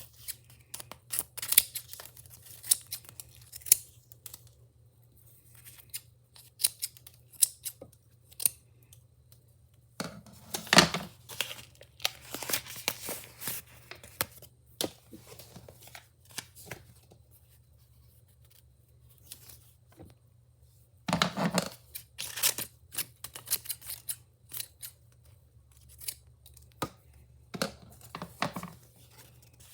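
Packaging being opened by hand: bursts of tearing and rustling with sharp clicks, broken by short pauses.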